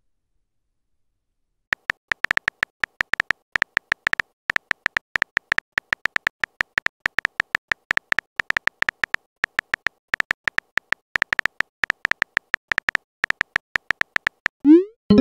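Texting-app keyboard sound effect: rapid, irregular key-tap clicks as a message is typed out, beginning a second or two in and running until near the end, where a short rising blip sounds.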